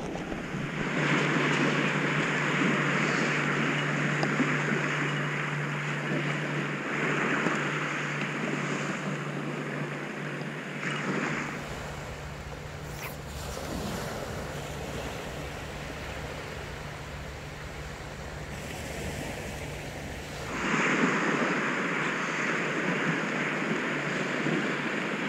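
Small waves washing up a sandy beach in a steady hiss. The hiss eases off about a third of the way in, when a low wind rumble on the microphone comes in, and swells again about four-fifths of the way through.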